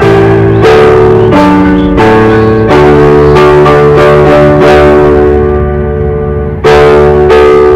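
Instrumental music with no singing: a series of chords, each struck and held for a second or two before the next.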